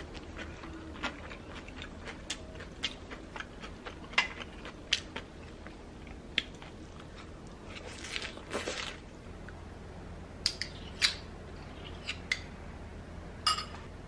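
Scattered sharp clicks and taps with a few short crisp crunches, from a crisp pan-fried dumpling being handled and a piece taken off a wire cooling rack in an enamel tray. The longest crunch comes a little past the middle.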